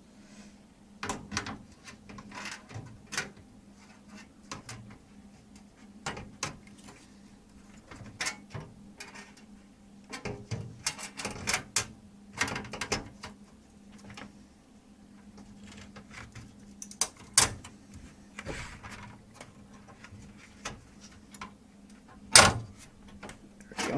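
Irregular clicks, taps and knocks of a micro ATX motherboard being lowered into a PC case and nudged onto its standoffs and against the rear I/O shield, with the loudest knock near the end.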